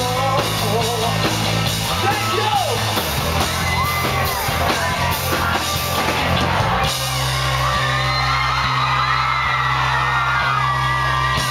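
Live rock band playing with singing and drums. About seven seconds in the drums stop and a held chord rings on while the crowd yells and whoops.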